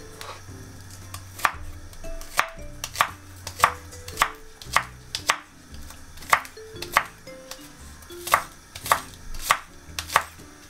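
Large kitchen knife chopping spring onions on a wooden cutting board: sharp, uneven knocks of the blade on the board, about one to two a second.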